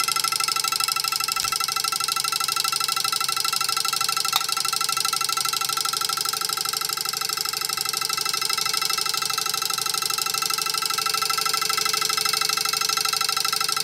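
Homemade twin-coil vibrating switch, built like an electric-bell interrupter, buzzing steadily as its iron rod chatters rapidly between the two coils, making and breaking the circuit. Its inductive spikes are powering a small light bulb. One brief tick comes about four seconds in.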